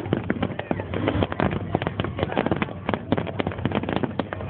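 Firecrackers and fireworks popping and crackling in quick, irregular succession, many bangs a second, over a background of voices.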